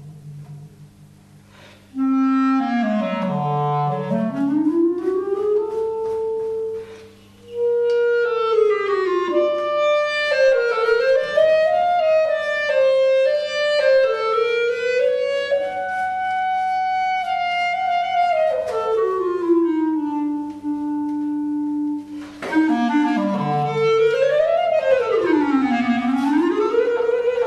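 Solo clarinet improvising freely, with swooping glides up and down in pitch and some longer held notes. It comes in about two seconds in and breaks off briefly a few seconds later.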